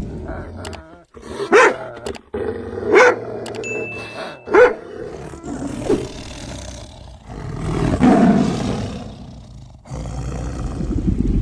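A large animal roaring: three short loud calls about a second and a half apart, then a longer call about eight seconds in.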